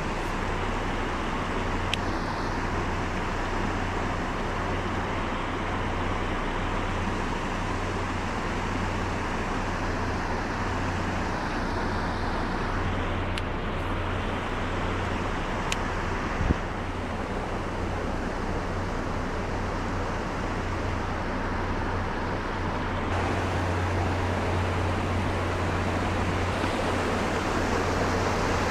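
Steady rush of running river water with a low rumble underneath.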